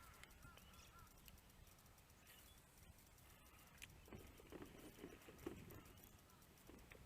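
Near silence: faint outdoor ambience with a few faint chirps early on, and a run of soft knocks from about four to six seconds in.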